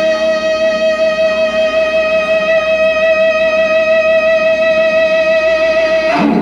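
Amplified electric guitar holding one sustained note with a slight waver, cut off suddenly near the end.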